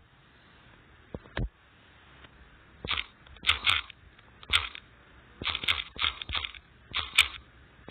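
Typing on a smartphone's on-screen keyboard: a run of quick, irregular taps starting about three seconds in, some coming in fast clusters of two or three.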